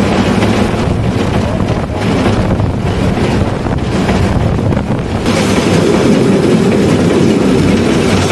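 NSB class 7a steam locomotive running along the main line, its steady rumble mixed with the noise of the wheels on the rails. About five seconds in, the sound becomes louder and brighter.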